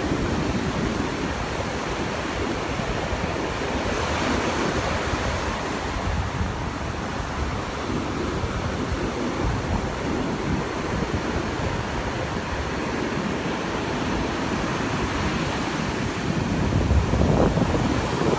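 Ocean surf breaking and washing up the sand in a steady wash of noise, with wind rumbling on the microphone. It gets a little louder near the end.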